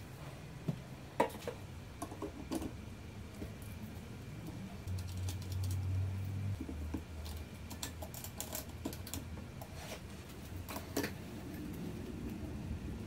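Irregular small clicks and taps of hands handling metal and plastic parts, a laser module being fitted onto a laser engraver's gantry carriage and its cable connector handled, with a sharper click about a second in.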